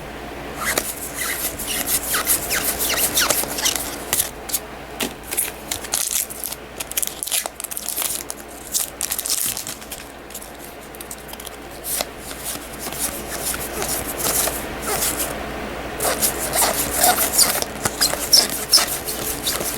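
Trading cards being handled: booster pack wrappers tearing and crinkling, and cards rubbing and scraping as they are slid apart and flipped, with many quick clicks and rustles.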